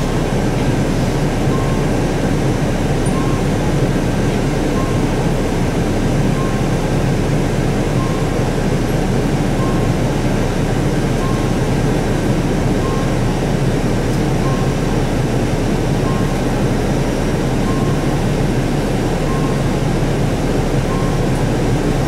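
Steady low hum inside an Isuzu Erga city bus standing still in traffic, with a short beep repeating about every one and a half seconds, the bus's turn-signal indicator.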